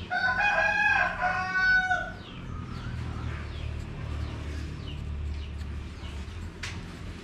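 A rooster crows once, a loud call lasting about two seconds, followed by faint short chirps.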